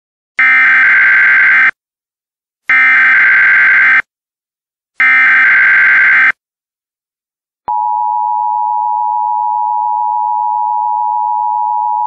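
Emergency Alert System header tones announcing a Civil Emergency Message: three identical SAME data bursts, each a little over a second long, with about a second between them, then after a short pause the steady two-tone attention signal begins and holds.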